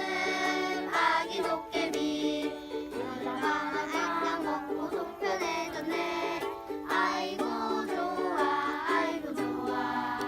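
Background music: a song with plucked-string accompaniment and a singing voice.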